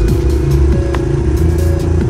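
Background music with a steady held tone and a bass line that changes notes about every half second.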